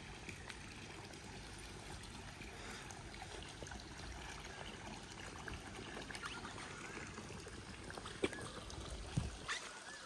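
Faint outdoor ambience of steadily trickling water, with a few faint high chirps and a couple of soft knocks near the end.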